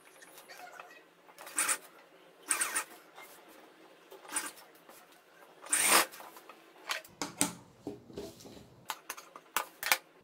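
Cloth rustling and swishing as the kurti is pulled, turned and smoothed at the sewing machine, in a series of brief uneven swishes, the loudest about six seconds in, with a few sharp clicks near the end.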